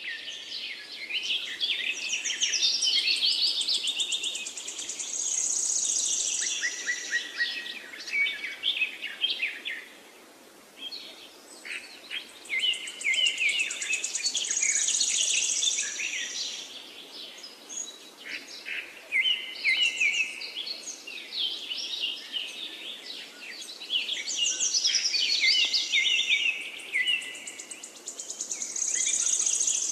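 Birds singing and chirping: a busy mix of high chirps and quick trills that swells and fades in waves every ten seconds or so, over a faint steady hiss.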